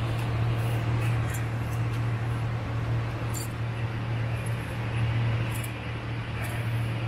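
A steady low mechanical hum over an even hiss, with a few faint light ticks scattered through it.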